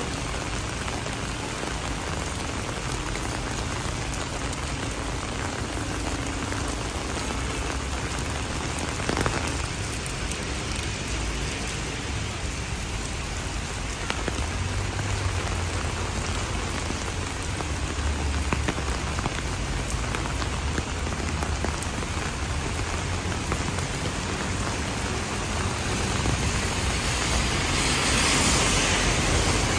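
Rain falling on a wet city street and pavement, a steady hiss that grows louder near the end.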